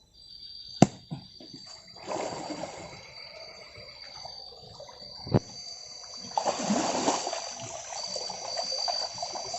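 Water splashing and trickling as a bubu fish trap is lifted and handled in the water, louder around two-thirds of the way through. There are two sharp knocks, one near the start and one about halfway, over a steady high insect trill.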